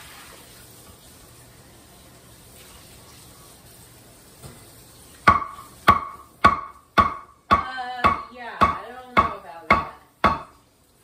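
Knife chopping raw meat on a wooden cutting board: about five seconds in, steady chops begin at about two a second, each with a short ringing after the strike.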